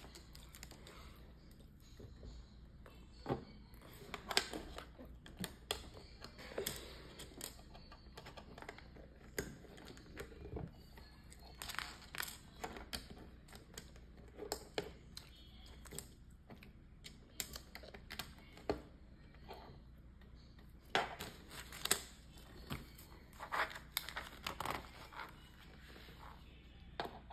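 Plastic Lego bricks clicking and tapping as pieces are handled and pressed together: irregular sharp clicks that come in spells.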